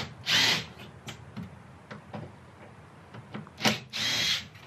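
Cordless drill-driver run in two short bursts, one just after the start and one near the end, backing out the screws that hold a van's steel bulkhead, with light clicks and knocks of handling in between.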